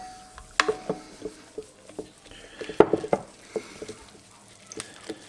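Wooden spoon stirring flour into a wet dough mixture in a glass bowl, with irregular knocks and scrapes of the spoon against the glass.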